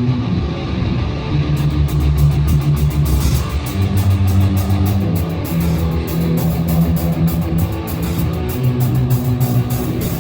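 Amplified electric guitar and bass playing low held notes that change every second or two. A steady high ticking, about four times a second, joins about a second and a half in.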